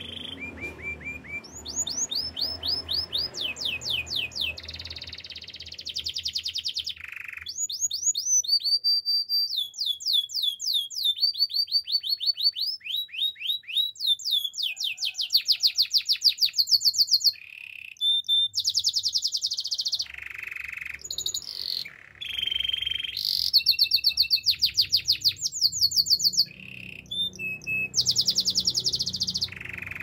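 White canary singing a long song made of rapid trills: high-pitched phrases of fast repeated notes and sweeps, each run lasting a second or two before the next begins.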